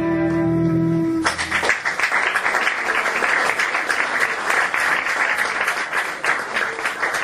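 The final held chord of cello and double bass stops about a second in, and an audience breaks into steady applause.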